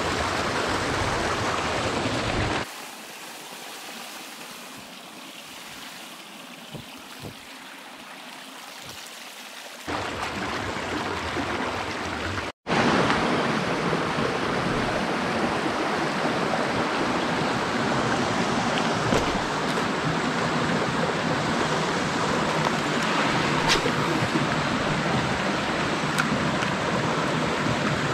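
Creek water rushing over rocks in a steady wash. It turns quieter for several seconds, with a few soft knocks, and comes back loud after a brief gap near the middle.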